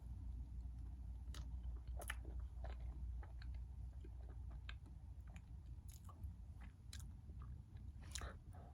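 A person chewing soft chocolate mochi roll cake, with wet mouth sounds and scattered small clicks and smacks.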